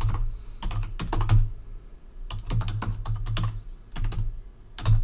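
Typing on a computer keyboard: quick runs of keystrokes with brief pauses about two seconds in and again near four seconds.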